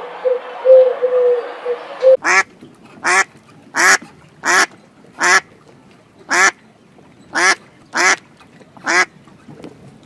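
Pigeon cooing, cut off about two seconds in, followed by a duck quacking: nine short, loud single quacks spaced under a second apart.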